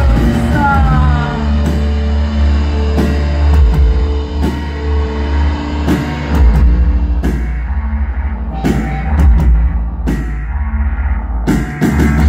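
Live rock band playing loudly: a heavy bass and held chords under drum hits spaced about a second or more apart.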